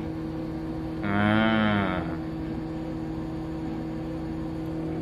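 Motor grader's upper windscreen wiper switched on, with one tone lasting about a second, about a second in, that rises and falls in pitch as the blade drags across the glass. Under it runs the steady hum of the grader's idling diesel engine heard inside the cab.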